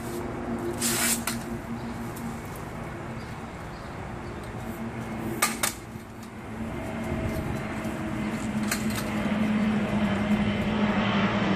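Handling of a pole-mounted flat-mop window-cleaning tool: a short rasp about a second in as the microfiber pad is pulled off, sharp clicks about halfway and another click later as the bare pad frame is handled. Behind it a steady low engine drone grows louder in the second half.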